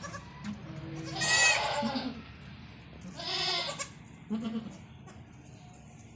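Goats bleating: a loud, wavering bleat about a second in, a second bleat around three seconds in, and a short one shortly after.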